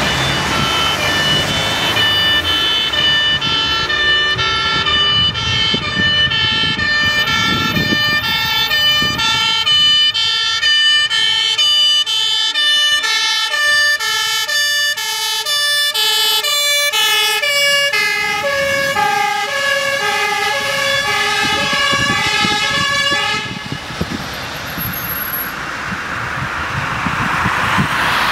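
Dutch fire engine's two-tone siren alternating rapidly between a high and a low note, the tones sitting lower later on. It cuts off suddenly near the end, leaving the truck's engine and traffic noise.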